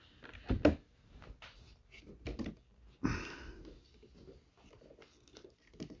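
Hard plastic parts of a Mercedes-Benz interior door panel being handled and fitted together: scattered clicks and knocks, with a louder rustling scrape about halfway through.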